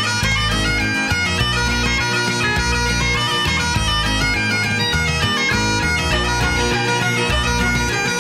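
Bagpipe tune: a quick melody over a steady drone.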